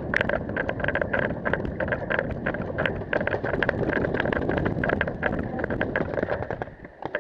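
Wind rushing over a body-worn camera's microphone as the wearer moves, with a rapid, irregular clatter of sharp clicks throughout. It all drops away shortly before the end.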